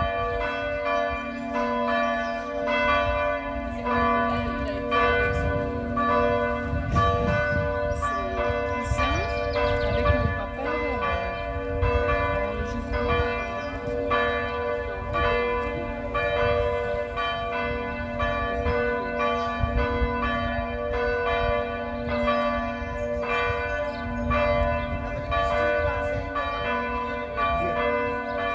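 Several large swinging church bells, cast by Causard of Tellin, ringing together in a partial peal. Their strikes overlap continuously over a steady low humming tone.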